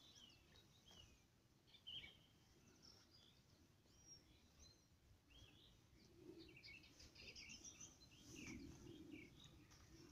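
Faint birdsong: many short chirps and little whistles from small songbirds, busiest a little past halfway, over a quiet outdoor background.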